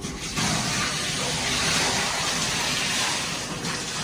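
Water running in a steady hiss, as from a tap or shower pouring into the bath. It starts about a third of a second in and eases off near the end.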